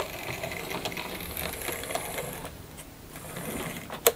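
Hornby Large Prairie OO gauge tank locomotive running light over the track, its small electric motor and gears whirring steadily with faint ticks from the wheels. There is one sharp click just before the end.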